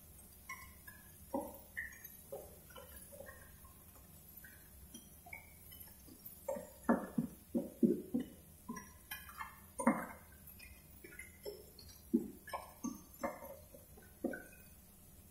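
Clams in their shells being stir-fried with a spatula in a frying pan: irregular clattering and clinking of shells against each other and the pan, busiest in the middle stretch.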